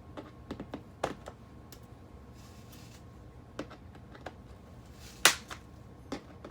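Irregular sharp clicks and snaps of small hand tools working on model railroad track as it is pulled apart, about eight of them, the loudest about five seconds in.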